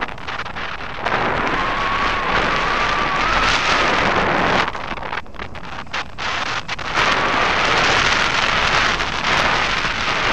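Rushing airflow buffeting the microphone of a camera mounted on a hang glider in flight: steady wind noise that eases for a couple of seconds mid-way, with a faint wavering whistle above it at other times.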